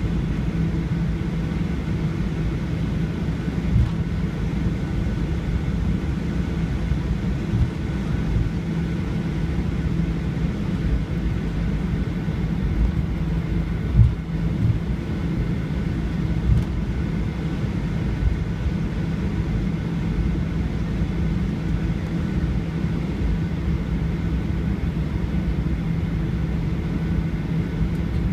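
Airliner cabin noise heard from a window seat: a steady low rumble of jet engines and cabin air with a constant hum, and a few short soft thumps, the loudest about halfway through.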